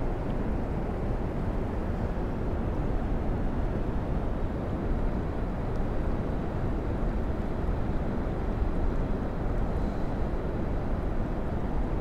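Steady rushing of fast-flowing river water, an even low noise with no breaks.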